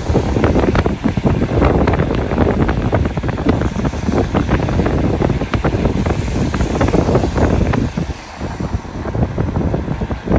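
Wind buffeting the microphone from a moving car, a loud, uneven rumble with road noise underneath. It drops off briefly about eight seconds in.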